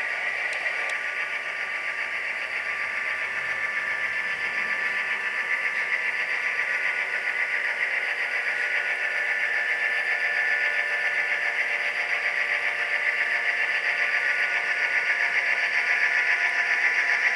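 SoundTraxx Tsunami sound decoder in an HO-scale Walthers Proto 2000 SD9 model locomotive, playing EMD diesel engine sound through the model's small speaker. The engine sound runs steadily and slowly grows louder.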